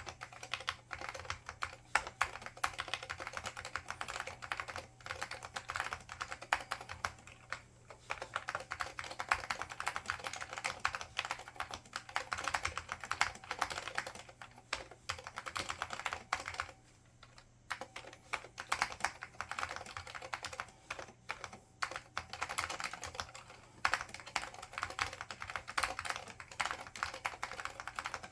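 IBM 5556-001 Multistation keyboard with Alps SKCL Green switches and ABS doubleshot keycaps, typed on in fast continuous runs of clicky keystrokes, with brief pauses twice. A faint steady hum lies underneath.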